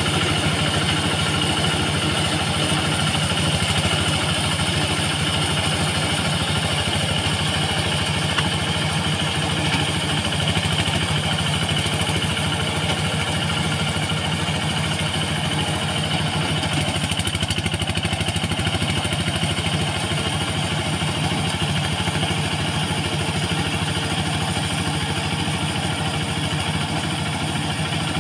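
Quick QH-11 combine harvester running steadily, a constant engine drone with a steady high whine over it.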